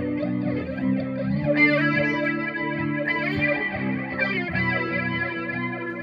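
Distorted electric guitar played through a pedalboard into a FoxGear Plex55 pedal amp: a looped rhythm part of steady chords with higher lead notes and bends over it.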